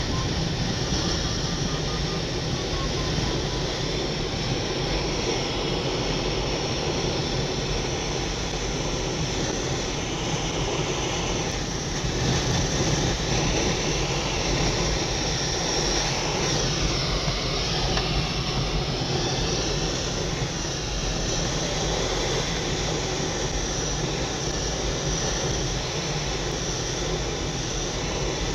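Steady rush of airflow and rumble inside a Duo Discus glider's cockpit during an aerotow takeoff, with the tow plane's engine droning ahead. A faint wavering whistle sounds in the first few seconds.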